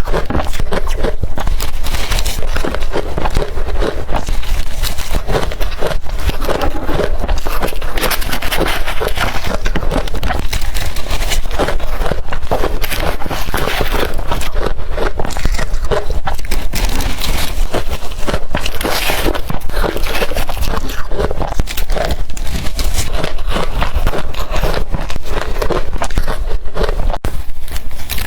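Close-miked biting and chewing of crushed blender ice: a dense, unbroken run of crisp, loud crunches.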